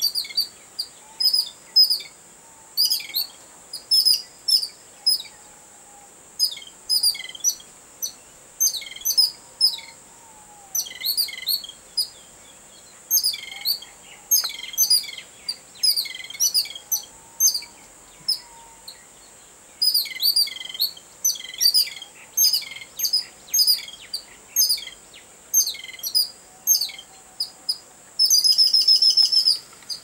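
A babbler giving short, harsh chattering calls, one after another in quick clusters: the excited alarm of a babbler that has seen a cat. About two seconds before the end, a continuous harsh rattle lasts a little over a second.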